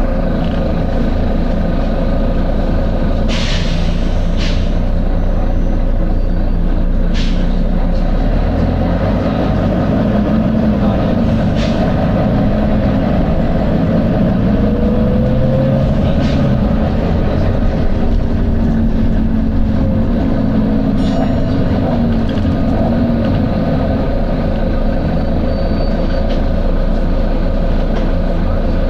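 Volvo B9TL double-decker bus's six-cylinder diesel running steadily, its note shifting in pitch through the middle, with several short hisses of air from the bus's air system.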